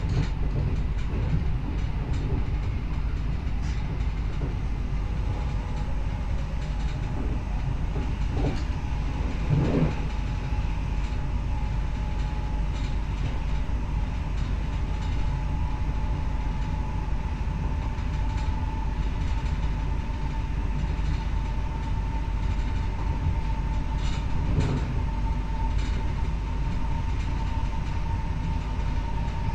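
Z 20500 double-deck electric multiple unit running along the line: a steady rumble of wheels on rail, with a few knocks over rail joints. A motor whine creeps slightly higher in pitch from about halfway, as the train gathers speed.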